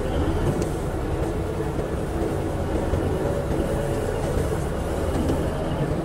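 Komatsu D85A-18 bulldozer's diesel engine running steadily, a low rumble with a faint hum.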